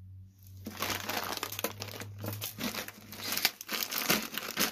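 Plastic cereal bag crinkling and crackling as it is handled and turned over, starting about half a second in.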